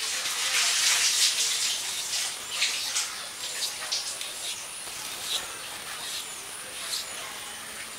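Raw potato being sliced by hand on a bonti, a curved upright kitchen blade: a run of short scraping cuts at an irregular pace, busiest in the first second or so.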